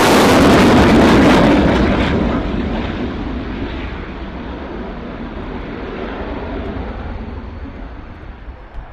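Jet noise from a Saab JAS 39 Gripen fighter passing low, loud for about two seconds. It gives way abruptly to a duller rumble that slowly fades.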